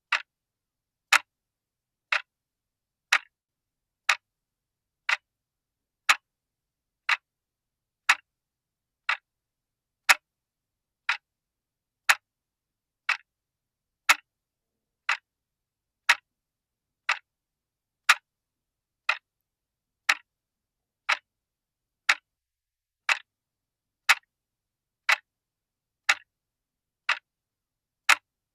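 Clock ticking: one sharp tick each second, evenly spaced, with silence between the ticks.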